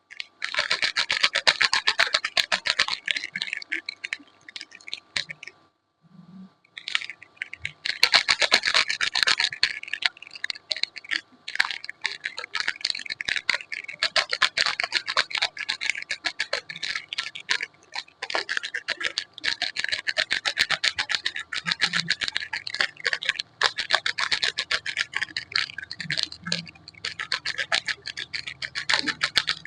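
Close-miked scratching and crackling from soap being handled, a dense run of tiny clicks with a short pause about six seconds in.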